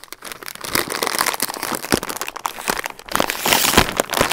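Rap Snacks popcorn bag crinkling as it is handled, then crackling loudest near the end as it is pulled open at the top seal.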